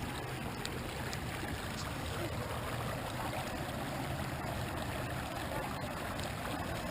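Steady rush of a river in record flood, running high and fast over its banks.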